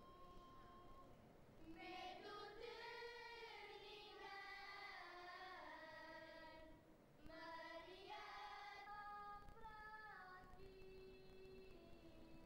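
Children's choir singing cante alentejano unaccompanied, in long held, slow-moving notes. The sound is thin for the first couple of seconds, then fuller as more voices come in, with a short breath about seven seconds in. The recording is faint.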